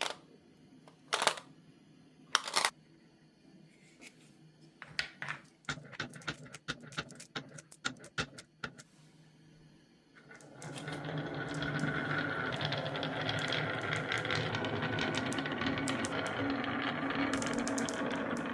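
Glass marbles on a wooden marble run: two sharp knocks, then a quick string of clicks, and from about halfway a steady rattling roll as many marbles run down the track together.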